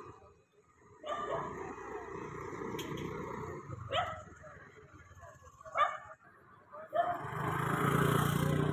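A dog barking, sharp barks about four seconds in and again near six seconds, over a steady background din.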